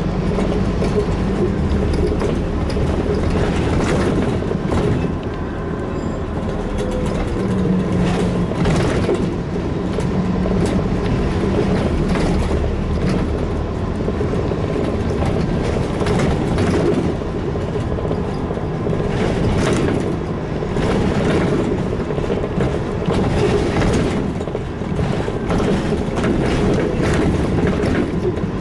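Inside a Scania N230UD Enviro400 double-decker bus on the move: the diesel engine runs with its low note coming and going as the bus pulls away and eases off, over road noise, with frequent short rattles from the bus body.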